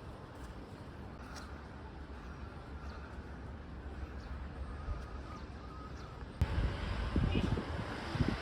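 Quiet outdoor ambience with a few faint, short chirping calls. About six seconds in it cuts to gusty wind buffeting the microphone.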